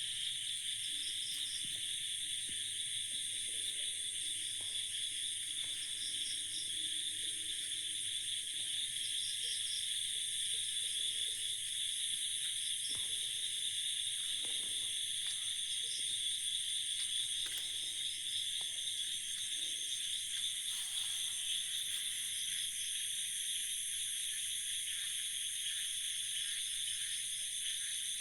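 Night insect chorus: crickets and other insects trilling steadily in several high pitches, with a higher pulsed chirp repeating every second or two.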